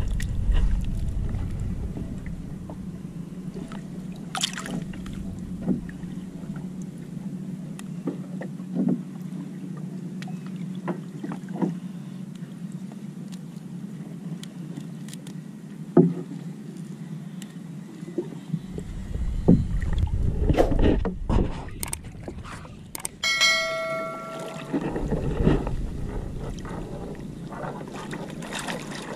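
Water sounds around a small fishing boat, with scattered knocks and clicks of handling. There are two stretches of low rumble, about two-thirds of the way through and again near the end, and a short pitched tone between them.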